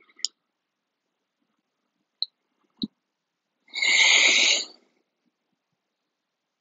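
A single loud, breathy exhale lasting about a second, near the middle. It stands among a few short clicks, with dead silence between.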